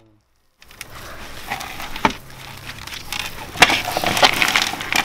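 Dry, chaff-filled potting mix rustling and crackling as a plant is worked out of a black plastic pot, with sharp crackling clicks about 2, 3.5 and 4 seconds in. It starts about half a second in and grows louder.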